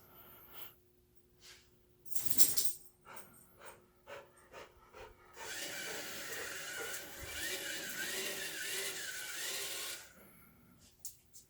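A short rustle and a few light clicks, then about four and a half seconds of steady whirring from a small electric motor, with a whine that wavers up and down in pitch, stopping abruptly near the end.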